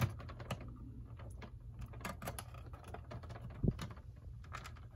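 Light clicks and taps of hard plastic as fingers pry at the snap-on engine cover of a vintage G.I. Joe Cobra WOLF toy vehicle, with one louder knock a little past halfway.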